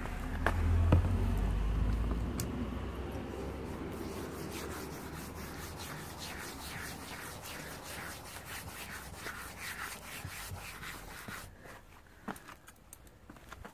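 A hand rubbing industrial hand-wash cleaner over a matt Plasti Dip coated car bumper in quick back-and-forth strokes, about three a second, which stop near the end. A low rumble during the first two seconds is the loudest part.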